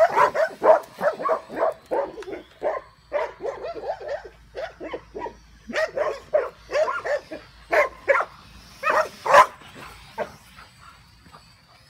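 Belgian Malinois dogs barking rapidly and excitedly at a drone, short sharp barks several a second that thin out and stop about ten seconds in.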